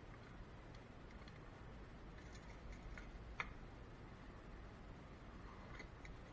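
Near silence broken by faint light clicks and taps of hard plastic being handled around a car's engine cover and oil filler funnel, with one sharper click about halfway through.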